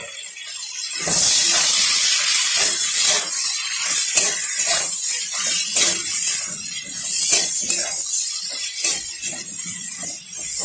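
Poppy-seed paste and diced potatoes frying in mustard oil in an aluminium kadai, sizzling from about a second in, while a metal spatula stirs and scrapes against the pan in quick strokes.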